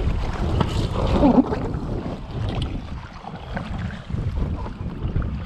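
Water splashing and lapping as an inflatable packraft is paddled, with wind rumbling on the microphone. A brief squeak about a second in.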